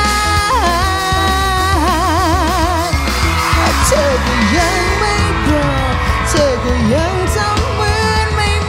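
A singer performing a pop song into a microphone over a backing band track with a steady bass beat; about two seconds in the voice holds a long note with a wide vibrato.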